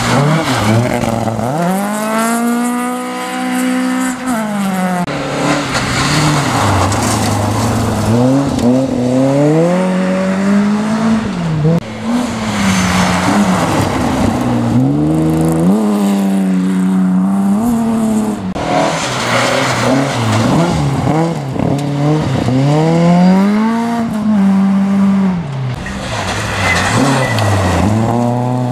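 Rally cars, among them Volvo 240s and a BMW 3 Series, passing one after another at speed, their engines revving hard and dropping back at gear changes and lifts, several times over. Tyre and gravel noise runs under the engines.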